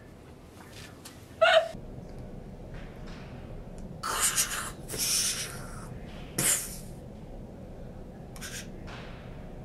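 A person making breathy mouth sound effects: a few short hissing puffs of air, one with a brief squeak, spread across several seconds.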